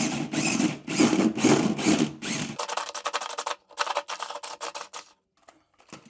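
Makita cordless drill driving a hole saw through the boxing wall, cutting hard for the first two and a half seconds, then a lighter, broken grinding as the saw finishes the cut, stopping about five seconds in.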